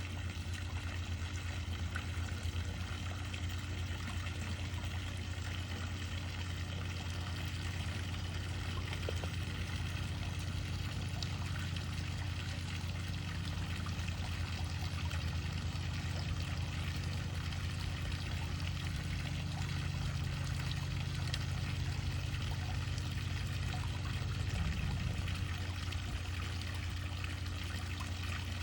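Pool fountain water pouring and splashing steadily into the pool, with a steady low hum underneath.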